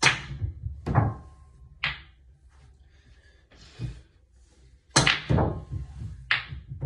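Pool cue striking the cue ball and balls knocking together on a pool table in two shots, one at the start and one about five seconds in. Each shot is followed by a few more sharp clacks as the balls hit one another and the cushions.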